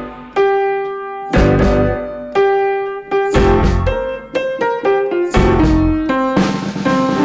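Background music: a keyboard melody of struck, fading notes over low bass notes.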